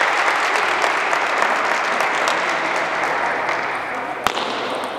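A loud, even rushing noise that slowly fades, with one sharp click of a table tennis ball being struck about four seconds in.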